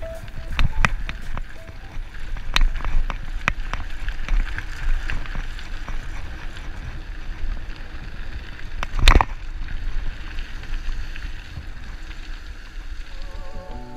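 Mountain bike rolling over a gravel track: tyres crunching and the bike rattling with frequent short clicks over bumps, and one sharp knock about nine seconds in. Low wind rumble on the microphone runs underneath.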